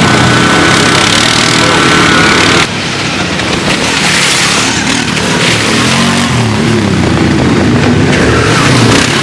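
Quad bike (ATV) engines running and revving, the pitch rising and falling with the throttle; the sound changes abruptly a little under three seconds in.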